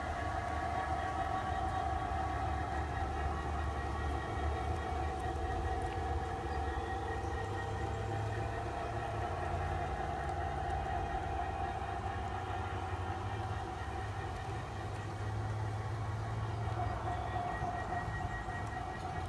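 Large-scale model RS3 diesel locomotive running on a garden railroad loop, pulling a short train: a steady hum with a few held tones over a low drone.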